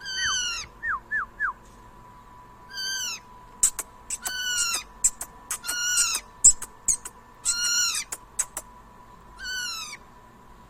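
Pet cage birds calling: a series of loud, falling calls about half a second each, repeated every one to two seconds, with short sharp chirps between them and a faint steady tone underneath.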